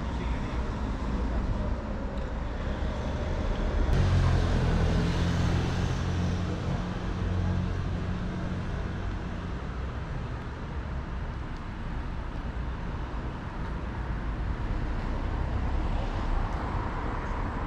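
Outdoor town ambience with a motor vehicle's engine passing close, loudest about four seconds in and then fading back into a steady background hum.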